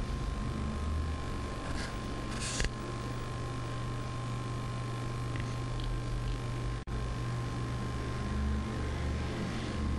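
Steady low electrical-sounding hum with a thin steady high tone over a bed of hiss. There is a short burst of hiss about two and a half seconds in, and the sound cuts out for an instant near seven seconds.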